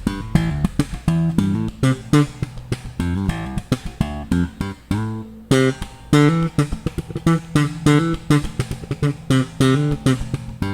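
Electric bass played slap style: a Squier bass with Malagoli pickups, tone knob partly rolled off, giving a quick run of popped and thumbed notes with a short pause about halfway through.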